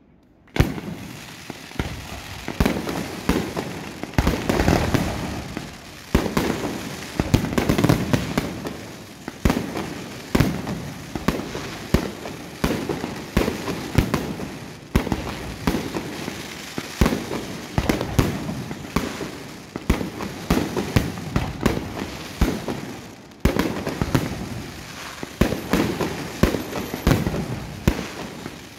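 Aerial fireworks display: shells bursting in a dense barrage of bangs, several a second, with crackling between them. It starts just after a brief hush at the very start.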